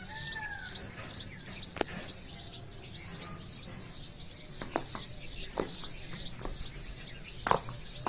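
Birds calling in a dawn chorus over a steady high-pitched background chorus: one arching call just after the start, then scattered short, sharp chirps, the loudest near the end.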